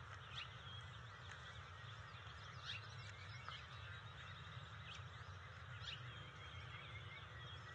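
Faint scattered bird chirps and calls, a few sharper ones about half a second, two and a half, five and six seconds in, with a short rapid chirping run around three seconds, over a steady low rumble.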